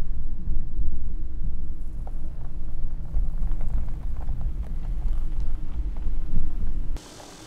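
Car driving on a dirt road, heard from inside the cabin: a steady low road rumble with small scattered rattles and clicks, cutting off suddenly near the end.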